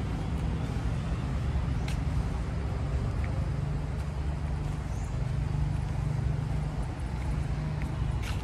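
Steady low rumble of motor-vehicle engines, like nearby road traffic, with a couple of short clicks about two seconds in and near the end.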